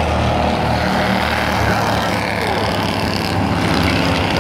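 Engines of small Bandolero race cars running on a short oval track, with rising and falling pitch slides about halfway through as the cars go through the turn.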